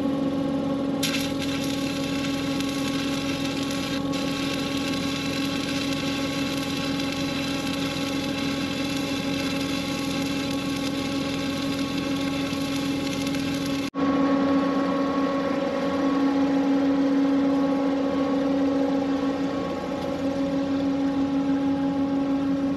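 Arc welding on the steel plow of a locomotive: a steady crackling hiss that starts about a second in and stops at a sudden break about halfway through. Under it, an engine runs with a steady hum throughout.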